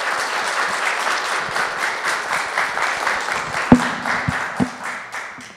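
Audience applauding, with the applause fading out near the end. Three sharp knocks stand out in the clapping a little past the middle.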